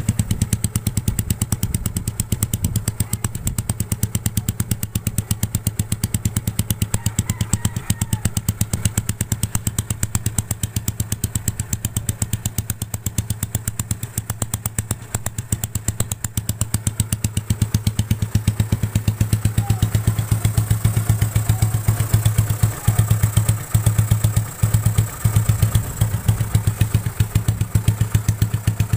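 Yamaha Mio Sporty scooter's single-cylinder four-stroke engine idling through an open exhaust pipe, a steady rapid exhaust beat on a raised idle set so it won't stall. The beat stumbles briefly a few times near the end.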